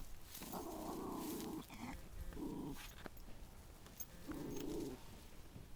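Chihuahua growling in three low, rough growls, the first the longest.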